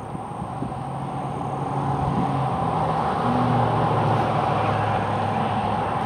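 A motor vehicle's engine and road noise, growing louder over the first three seconds and then holding steady.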